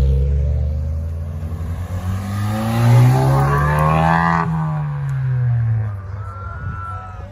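Honda Civic Type R's turbocharged four-cylinder accelerating past, its engine note climbing in pitch, loudest about three seconds in, then dropping and fading as the car pulls away. A deep engine rumble from another car fades out at the start.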